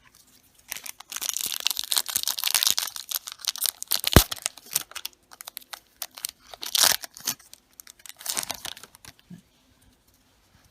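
A trading-card booster pack's wrapper being torn open and crinkled by hand, with a sharp snap about four seconds in and further bursts of rustling later.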